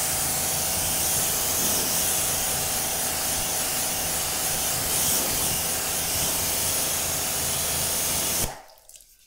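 Pressure washer lance spraying a fan of water across a car's door panel: a steady hiss of spray with a faint hum underneath. It cuts off about eight and a half seconds in.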